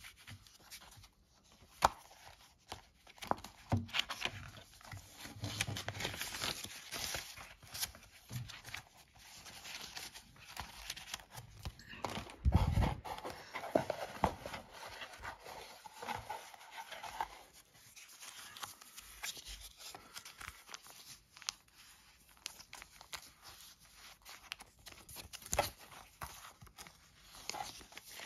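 Hands handling paper and cardboard packaging: booklet pages rustling and flipping, cardboard scraping, and light taps and clicks. There is one louder thud about halfway through.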